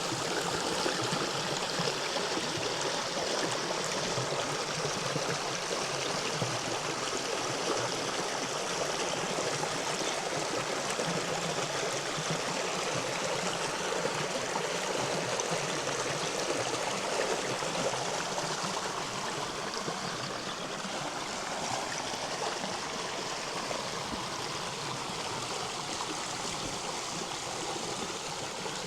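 A river running: a steady rush of flowing water, a little softer in the last third.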